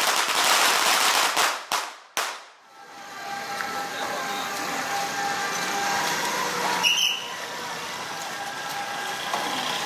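A string of firecrackers going off in a dense, rapid crackle that stops abruptly about two seconds in, followed by much quieter street background noise.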